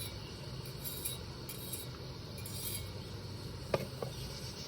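Faint scraping of a utensil against a metal camp pot while boiled maple seeds are scraped out, with two light clinks near the end.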